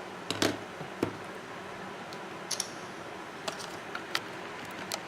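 A handful of light, sharp clicks and taps, spaced irregularly, over a steady background hiss.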